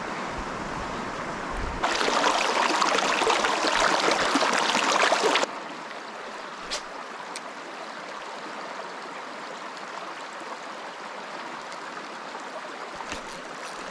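Creek water rushing steadily. It jumps louder about two seconds in and drops back abruptly about three and a half seconds later. Two light clicks come near the middle.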